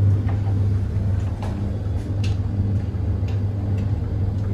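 Tumble dryer running on its easy-dry programme: a steady low hum with a few faint light ticks.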